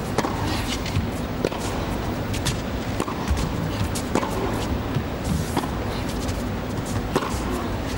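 Tennis ball struck back and forth with racquets in a rally, a sharp hit or bounce every second or so, over a steady arena background hum.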